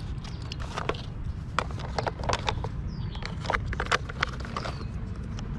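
Plastic clicks and taps of toy wheels and axles being handled and pushed onto a plastic toy garbage truck, scattered irregularly over a steady low background rumble.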